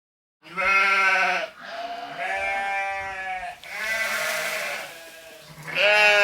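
Farm animals bleating: a run of wavering, pitched bleats, one after another with short gaps.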